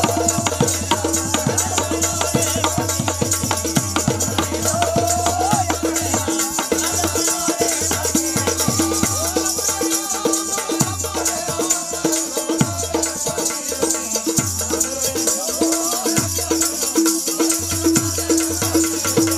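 Live devotional bhajan music: a pair of tabla hand drums keeps a steady rhythm, its bass strokes sliding down in pitch, under constant jingling of small hand percussion.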